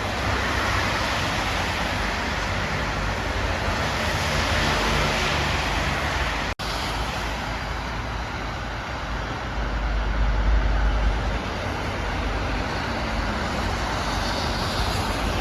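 Road traffic on a rain-soaked road: a steady hiss of tyres on wet asphalt mixed with engine noise. A deeper rumble swells about ten seconds in. Near the middle the sound drops out for an instant.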